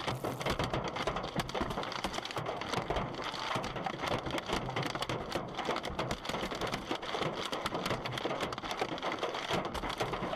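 Hailstones pelting hard surfaces in a heavy hailstorm: a dense, irregular clatter of many small impacts that keeps up steadily.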